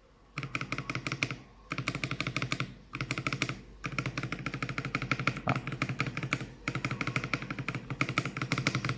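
Mechanical keyboard with thick PBT Cherry-profile keycaps on Akko CS Matcha switches being typed in quick runs, about ten keystrokes a second, with short pauses between runs. The keystrokes have a deep, solid sound.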